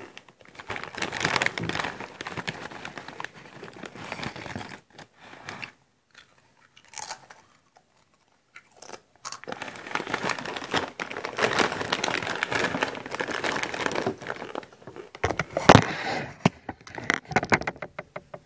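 Close-up chewing of crunchy crisps, in two stretches of crackly crunching with a quiet pause of about four seconds between them; a sharp knock sounds about three-quarters of the way through.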